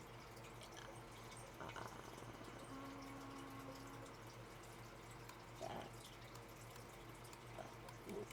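Near silence: quiet room tone with a few faint small clicks and a brief low hum about three seconds in.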